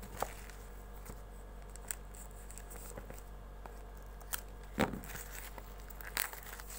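Handling noise from a small earbud product box being moved and turned by hand: scattered light taps, scrapes and rustles over a faint steady low hum. The loudest is a knock about five seconds in, with another about a second later.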